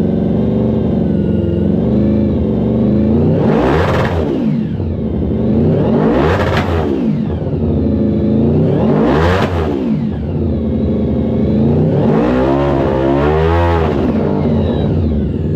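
Supercharged, nitrous-equipped Honda VFR750 drag bike's V4 engine running at a fast idle and revved hard. It is blipped up and back down three times, about every two and a half seconds, then held in a longer, wavering rev near the end.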